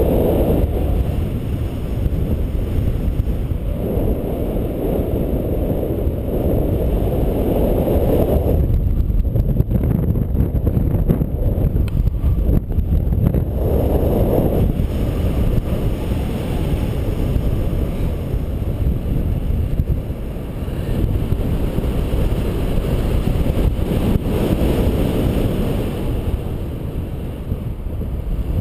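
Wind rushing over the microphone of a paraglider pilot's camera in flight: a steady low rumble that swells louder in gusts several times.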